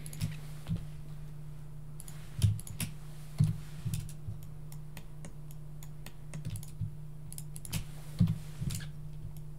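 Irregular, scattered clicks from a computer mouse and keyboard, about a dozen over the stretch, over a steady low hum.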